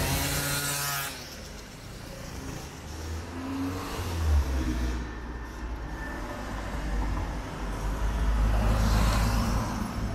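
Street traffic: a motor scooter passes close in the first second, then cars and scooters drive by with engines running, louder again near the end.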